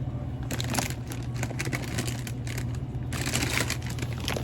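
Plastic snack-chip bags crinkling and rustling as they are handled, in a run of small irregular crackles, over a steady low hum.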